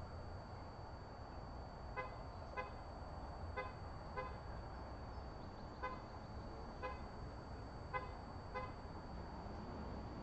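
Short nasal, horn-like beeps in pairs about half a second apart, the pairs repeating every one and a half to two seconds, over a steady hiss and a faint steady high whine.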